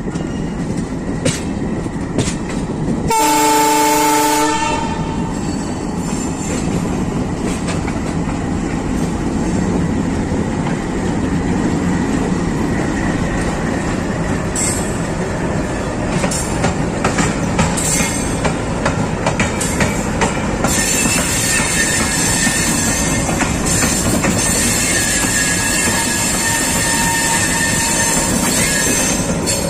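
An Indian express train's locomotive horn sounds once, loudly, for about a second and a half, over the steady rumble of the running train. Wheels click over the rail joints, and a high-pitched wheel squeal joins in about twenty seconds in.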